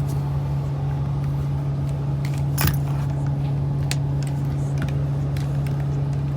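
Inside a moving bus: the steady drone of the engine and drivetrain, with small rattles and clicks from the cabin and one sharper clack about two and a half seconds in.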